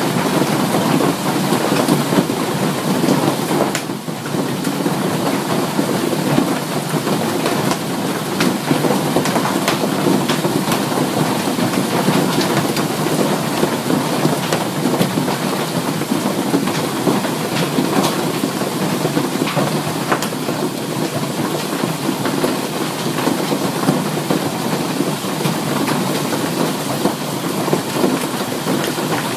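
Hail and heavy rain pelting a street: a dense, steady clatter of countless hailstones striking, dipping briefly about four seconds in.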